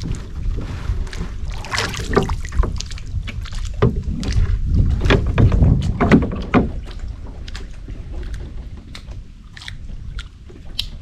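Small fishing boat on the water: irregular splashes and knocks against the hull, with wind rumbling on the microphone. The splashes and knocks are strongest in the first half and quieter near the end.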